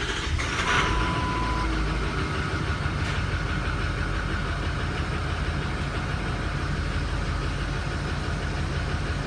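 Diesel truck engine idling steadily just after a restart, its injection-control pressure regulator (IPR) commanded high while oil pressure builds after a used IPR valve was fitted to cure a no-start. A short steady beep sounds about a second in.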